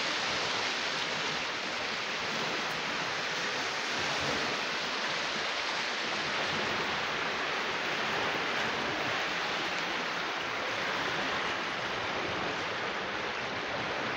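A steady, even rush of water noise with no breaks or separate events.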